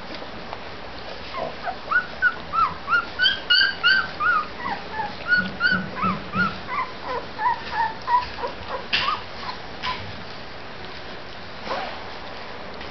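Two-week-old Labrador retriever puppies squeaking and whimpering: a quick run of short, high, rising-and-falling cries for several seconds, thinning out a little past halfway.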